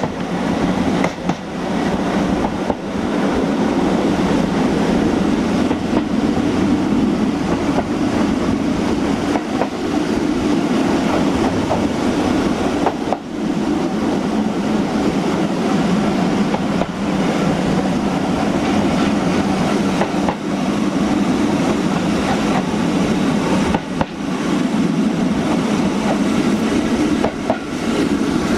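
Heritage train's carriage running along the track: a steady rumble of wheels on rail, with a sharp click or knock now and then.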